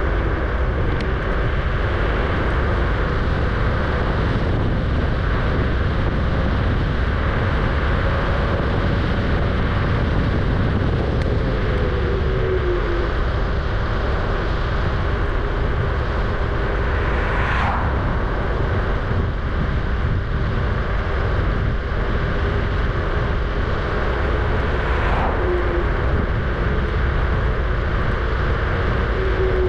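Kugoo G-Booster electric scooter riding along: a steady rush of wind and tyre noise, with a thin motor whine that slides up and down in pitch as the speed changes, played back at double speed. Two brief sharper swishes cut through, a little past halfway and again near the end.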